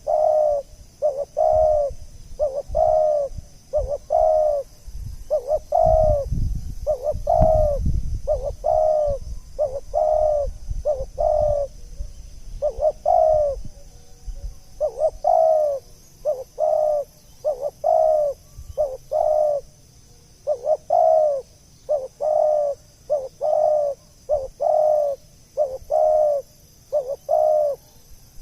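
Spotted dove (tekukur) cooing over and over in a long run of short, rounded coos, about one and a half a second with a brief pause midway, used as a lure call. A low rumble sits under the coos for a couple of seconds early on, with a faint steady high hiss throughout.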